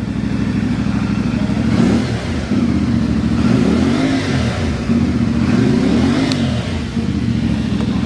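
CFMoto 450MT's 449 cc parallel-twin engine idling, then revved twice from idle, the pitch climbing and falling back each time, about two and a half seconds in and again near six seconds in. These are the first revs of a brand-new bike after warming to about 63 °C.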